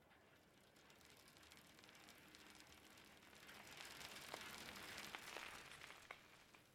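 Near silence: a faint hiss that swells in the middle and then fades, with a few soft clicks.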